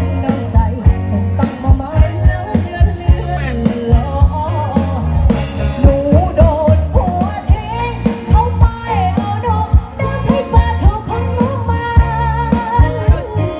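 Loud music with a singer, a wavering sung melody over a steady, driving drum beat.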